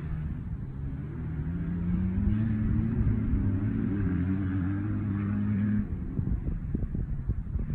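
An engine running steadily, its pitch rising slightly at first and then holding, cutting off abruptly about six seconds in. Low buffeting of wind on the microphone follows.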